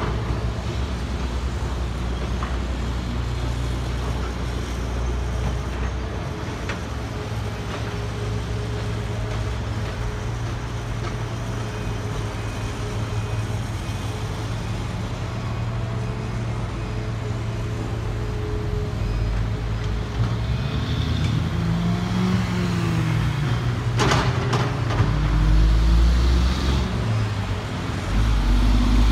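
Caterpillar hydraulic excavator's diesel engine running steadily as it digs and swings. About two-thirds of the way through, its pitch rises and falls under hydraulic load, and a sharp knock sounds. Near the end the engine gets louder and deeper.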